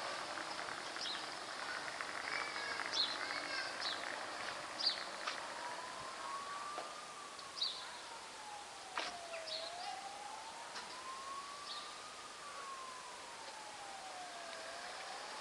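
A siren wailing slowly, its single tone rising and falling in pitch about every five seconds, beginning about a third of the way in. Before it, the noise of a car pulling away fades out.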